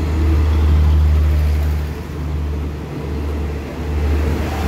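State Railway of Thailand passenger coaches rolling slowly past as the train pulls out of the station: a steady low rumble that dips briefly about two and three seconds in.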